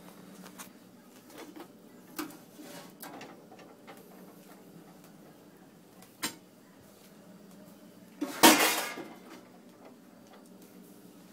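Light knocks and rustles from handling, with a sharp click about six seconds in and a louder noisy rush lasting about a second just after eight seconds.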